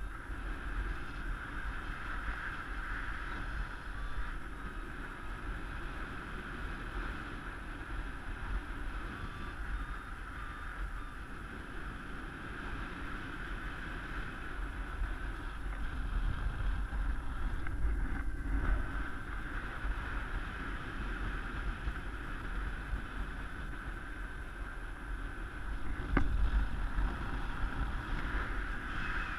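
Wind rushing over the camera microphone in paraglider flight: a steady rush with a deep rumble that swells a little now and then, and one brief knock near the end.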